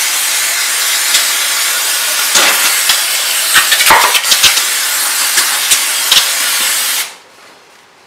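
Aerosol can of Nu-Blast condenser coil cleaner spraying onto a dusty refrigerator condenser coil in one continuous loud hiss that cuts off suddenly about seven seconds in. A few light knocks come in the middle of the spray.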